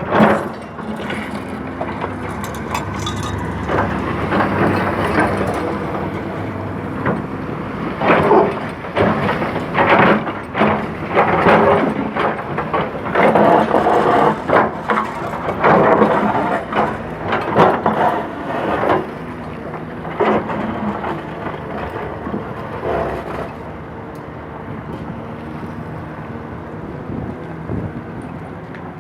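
Excavator engine running steadily, with repeated irregular cracking, scraping and clanking as the bucket digs and breaks up road material, busiest in the middle and easing off near the end.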